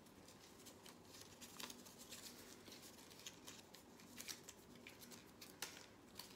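Small folded paper slip being unfolded by hand: faint, irregular paper crinkling and crackling.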